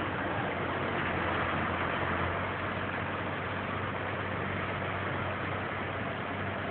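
Engine of a crane truck running steadily with a constant low hum, powering the truck-mounted knuckle-boom crane during a lift.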